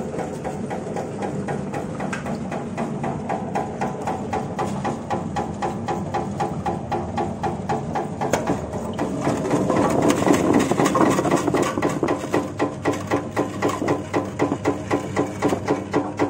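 Stainless-steel shallot peeling machine running with a fast, regular clatter. The sound grows louder about ten seconds in, as peeled shallots are let out into a basket at the outlet.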